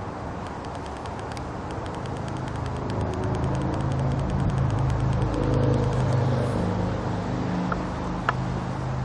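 Low engine hum of a passing vehicle, swelling to its loudest about six seconds in and then easing off. Faint rapid ticking runs over it in the first half, and there are two brief high chirps near the end.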